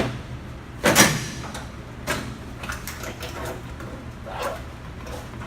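Interior door trim panel of a 1971 Mustang being pried off the door, its retaining clips popping loose. There is a sharp snap at the start and a louder one about a second in, then several smaller pops and knocks.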